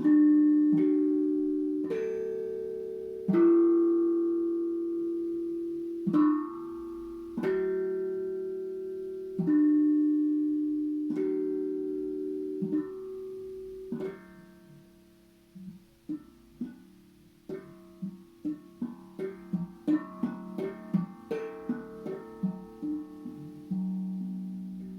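Steel tank drum (tongue drum) struck one note at a time, each tone ringing and fading slowly. About halfway through the strikes turn into quicker, lighter taps in close succession.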